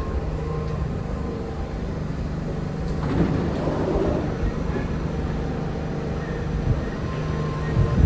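New York City subway train in the station: a steady rumble with a held motor hum, a sharp clank about three seconds in, and a short swell of wheel and rail noise after it.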